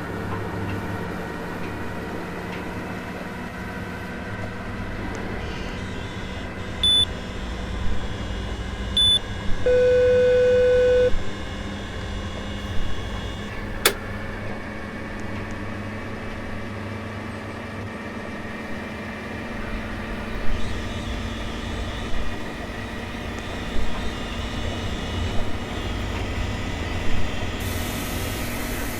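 Washing machine running with a steady hum and low rumble. About seven and nine seconds in come two short high beeps, then a loud steady beep lasting over a second, and a sharp click a few seconds later; brief knocks recur in the second half.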